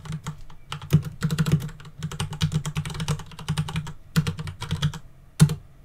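Typing on a computer keyboard: a quick, irregular run of keystrokes entering a command, ending with one louder single keystroke near the end.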